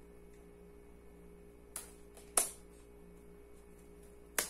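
Hardcover book being handled and opened by hand: three short sharp taps or clicks from the cover and fingers, the second, about two and a half seconds in, the loudest, over a steady faint hum.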